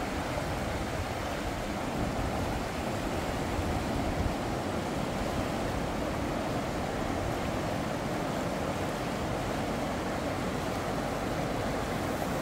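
River water rushing steadily over shallow rapids.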